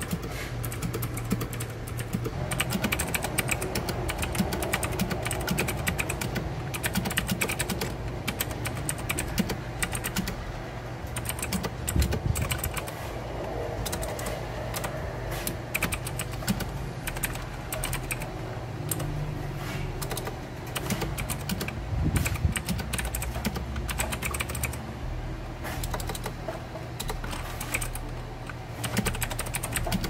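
Fast, continuous typing on a Royal Kludge RK100 mechanical keyboard with Outemu switches: a dense, uneven stream of key clicks, over a steady low hum.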